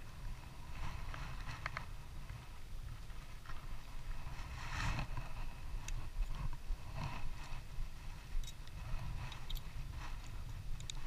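Steady low wind rumble on the microphone, with scattered soft rustles and light clicks as a fishing rod and spinning reel are handled.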